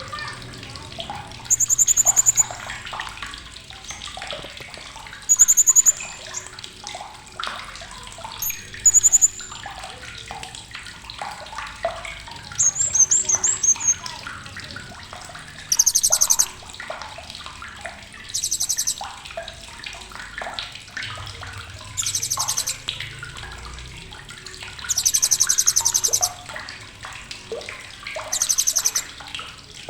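Blue-crowned hanging parrot (srindit) giving sharp, very high-pitched chattering calls in about nine short rapid trilled bursts, over softer background chirping and a water-like hiss.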